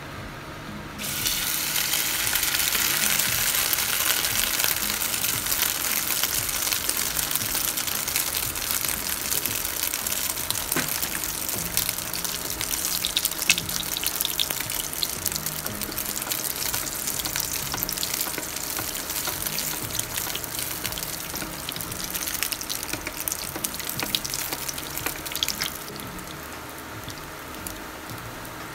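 Sardine omelette mixture (tortang sardinas) sizzling in hot oil in a frying pan. The sizzle starts suddenly about a second in, as the mixture goes into the oil, then runs on steadily and eases near the end.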